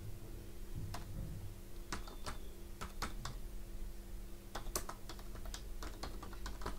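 Computer keyboard keys tapped in an uneven run of clicks as a file name is typed, over a faint steady hum.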